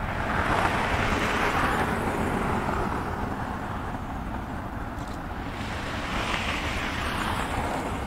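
Airbus A320-214's twin CFM56-5B jet engines at climb power just after takeoff: a steady jet rush over a low rumble. The hiss swells in the first couple of seconds and again about six seconds in.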